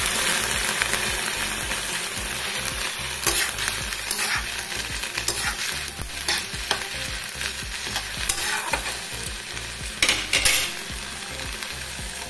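Onions, garlic and green chillies sizzling in ghee and a splash of water in a kadai, the hiss slowly dying down, with a metal spatula scraping and knocking against the pan now and then.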